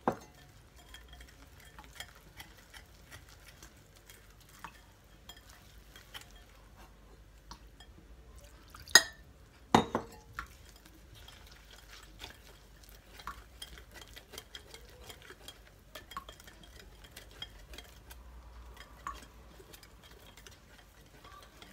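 Wire whisk stirring oat-flour pancake batter in a glass bowl, with many light ticks of the wires against the glass as milk is worked in. Two louder knocks come about nine and ten seconds in.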